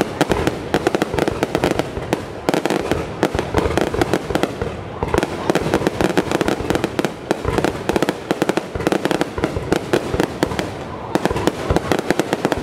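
Aerial fireworks going off close by: a dense, rapid barrage of bangs and crackling, with a few brief lulls.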